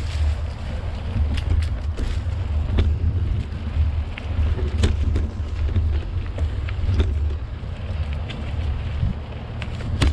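Mountain bike riding down a leaf-strewn dirt singletrack: a steady low rumble of wind buffeting and bike vibration on a bike-mounted camera's microphone, with scattered sharp clicks and rattles from the tyres and frame over the trail.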